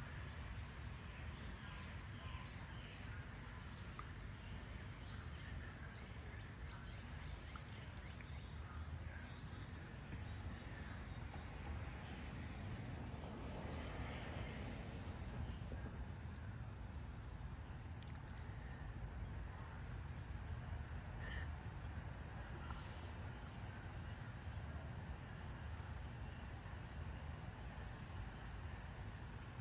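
Early-morning suburban outdoor ambience: a steady low background rumble with faint, regular insect chirping high up and a few scattered bird chirps. A broad swell of noise rises and fades about halfway through.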